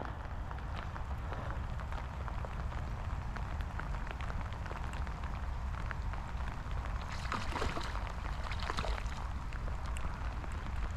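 Steady heavy rain pattering, with many small drop ticks, over a low wind rumble on the microphone. There are a few brief louder rustles or splashes about seven to nine seconds in.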